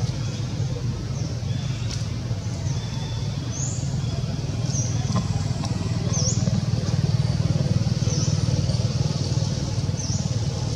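A steady low rumble, louder from about halfway through, with short high chirps repeating roughly once a second.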